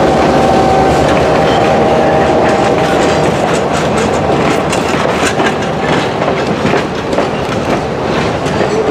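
A caboose and passenger coaches rolling past close by: a steady rumble of steel wheels on rail. A thin steady whine fades out about three seconds in, and a quick clicking of wheels over rail joints takes over.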